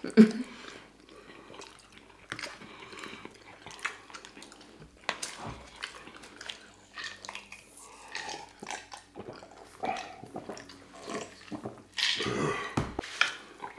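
Close-miked eating sounds: chewing and small clicks of forks on plates, with sips of a drink, and a louder burst of sound near the end.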